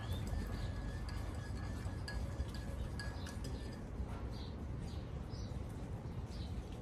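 Garden birds calling: a few short, high chirps in the second half, over a steady low rumble and scattered faint ticks.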